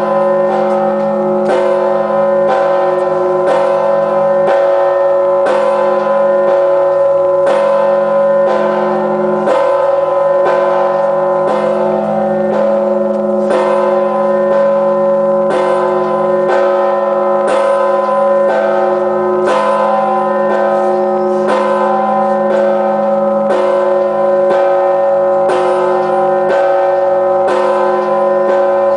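A 7,150 kg church bell struck at a steady tempo of about one stroke a second, near 58 strikes a minute. Each stroke rings on into the next, so a dense hum of overtones holds under the strokes.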